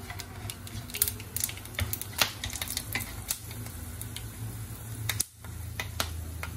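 Whole spices (cinnamon, cloves, cardamom and bay leaves) crackling and popping in hot oil in a pan as the tempering fries, with irregular sharp pops over a low steady hum. A wooden spatula stirs them.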